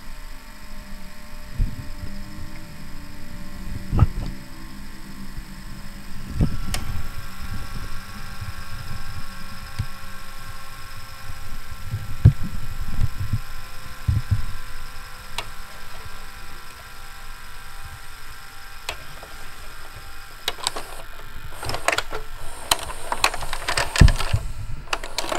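Panasonic NV-HD635 VHS video recorder's tape mechanism running in rewind with a steady whir and hum, with scattered knocks and clicks. Near the end it breaks into a quick flurry of mechanical clicks.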